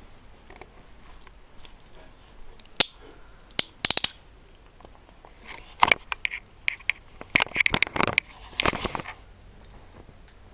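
Metal handcuffs clicking and rattling as they are handled and ratcheted shut. There is a single click about three seconds in, a few more a second later, then quick runs of clicks and clatter through the latter half.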